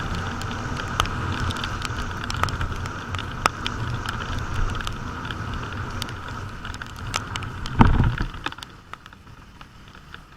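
Steady traffic and road noise in rain, with scattered sharp ticks like raindrops striking close by. A thump comes about eight seconds in, after which the sound drops quieter.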